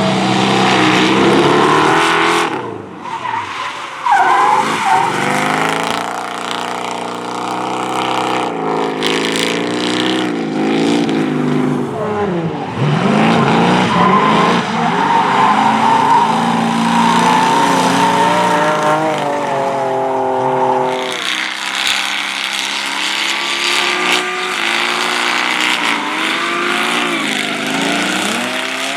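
Drift cars sliding through corners: engines revving up and down over and over, with tyres squealing and skidding. The sound changes abruptly about two-thirds of the way through.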